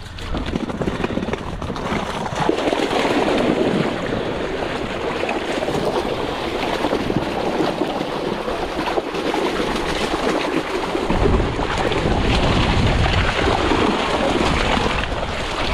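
Water splashing and sloshing as a keepnet heavy with fish is drawn up out of a lake and drains through the mesh. A low rumble of wind on the microphone joins in about two-thirds of the way through.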